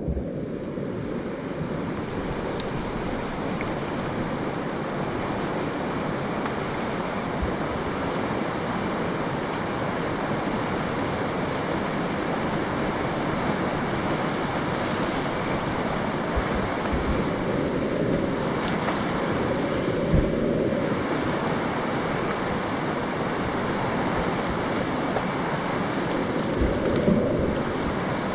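Steady rush of river rapids, white water pouring over rock, heard close to the camera, with wind buffeting the microphone. A few low thumps come in the second half.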